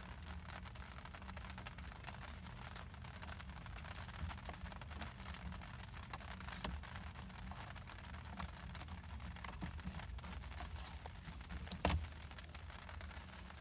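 Hands working on steering-column wiring and parts: scattered small clicks and rattles, with a louder knock about twelve seconds in, over a steady low hum.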